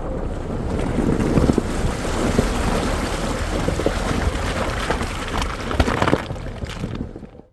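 Vehicle driving noise with heavy wind buffeting the microphone, steady and loud with scattered knocks and thumps, fading out abruptly near the end.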